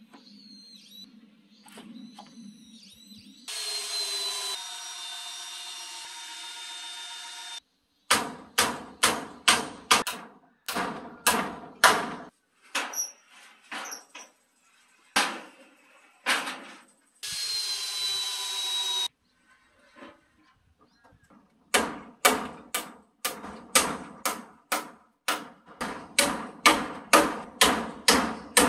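A hammer driving nails into timber rafters in runs of quick strikes, about three a second, with two stretches of a power tool running for a few seconds each.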